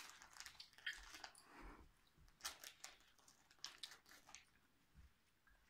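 Near silence broken by a few faint, brief clicks and rustles, in small clusters about one, two and a half, and nearly four seconds in.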